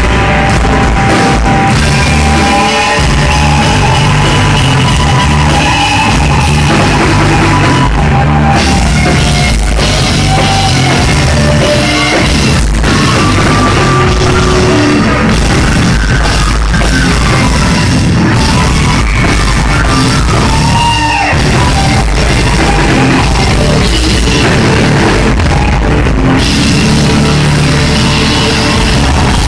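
Live rock band playing loud, with electric guitar and a drum kit. The recording is distorted and overloaded, as an audience recording made close to a loud PA tends to be.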